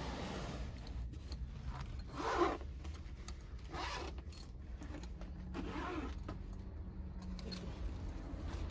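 A soft fabric pet carrier being handled: nylon rustling and the metal zipper pulls and clips jingling in a few short bouts, the loudest about two seconds in. The car's steady low hum runs underneath.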